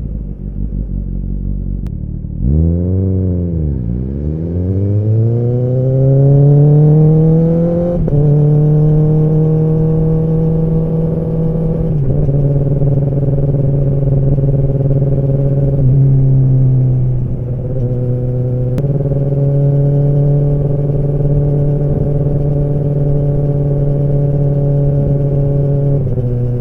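Kawasaki ZX-10R's inline-four engine and exhaust pulling away from low revs, its note rising steadily for several seconds. It steps down slightly about eight seconds in, then holds a steady cruising note with a few small throttle changes.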